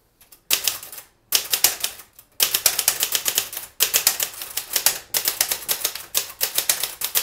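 Manual typewriter being typed on: rapid runs of clacking key and typebar strikes, in about five bursts with short pauses between them. The action is a little sloppy and slow to catch.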